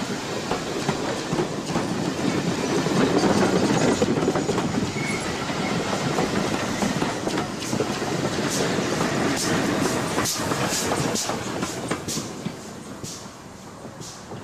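A train's carriages rolling past close by, with the wheels clattering over the rail joints. It is loudest a few seconds in, and sharp clicks come near the end as the last vehicle, a locomotive, goes by. The sound then fades as the train draws away.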